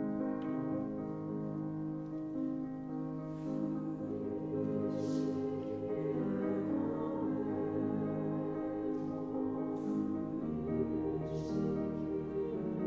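Mixed choir singing held chords in a slow classical choral piece with piano accompaniment, the singers' 's' consonants sounding together a few times as short hisses.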